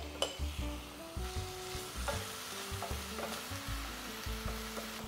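Minced garlic, chopped onion and sliced ginger sizzling in hot oil in an enameled cast-iron casserole, stirred with a wooden spoon that scrapes and now and then clicks against the pan.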